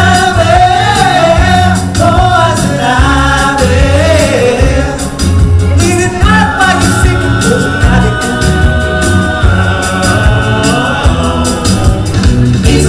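A male vocal group singing in close harmony over a rhythmic backing with a steady bass pulse. About six seconds in, the voices hold one long chord for several seconds before moving on.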